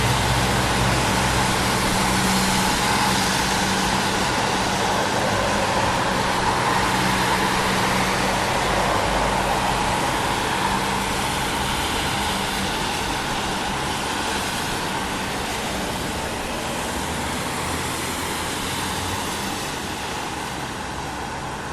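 City traffic on a wet road: tyres hissing on wet asphalt under a steady wash of vehicle noise. A deep engine hum sits under it for the first half and fades out, and the whole sound slowly grows quieter toward the end.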